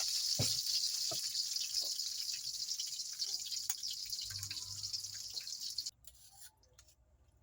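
Water running steadily with scattered drips, a fairly even hiss that stops abruptly about six seconds in, leaving faint clicks.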